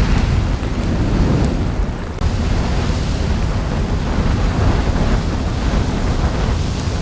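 Dubbed-in volcanic eruption sound effect, not the real sound of the eruption: a loud, steady, deep rumble with a hiss over it, which dips briefly about two seconds in.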